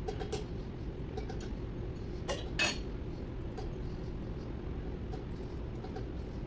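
Light metallic clinks of hand tools on metal, with two louder clinks close together a little over two seconds in, over a steady low workshop hum.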